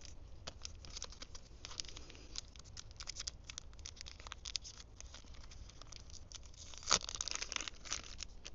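Small camera-accessory packaging being handled and opened by hand: a run of small crackles and rustles of plastic and card, with a louder burst of tearing and crinkling about seven seconds in.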